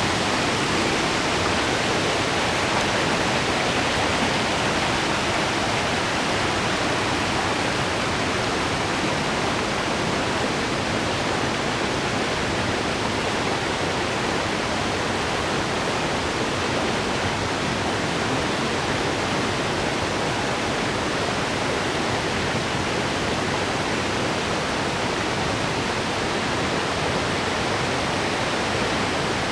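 Small waterfall pouring steadily into a stream, a constant rushing of falling water.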